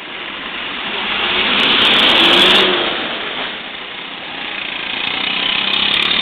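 Two vehicles passing on a wet road, their tyre hiss and engine noise swelling and fading: the first peaks about two seconds in, the second near the end.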